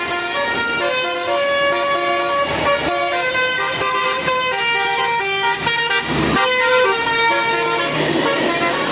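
Bus telolet horn, a bank of multi-tone air horns, playing a tune of held notes that step up and down in pitch. There is a brief rush of noise a little after six seconds in.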